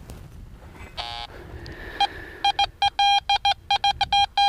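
Fisher F19 metal detector sounding target tones. A short buzzy tone comes about a second in, and from about two seconds a run of sharp, same-pitched beeps follows, about three or four a second, as the coil sweeps back and forth over the target. The signal sounds big, and the detectorist puts it down to a large piece of tin.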